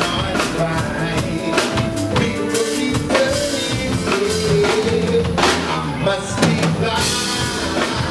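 Live soul band music: drum kit hits under bass and a wandering melody line.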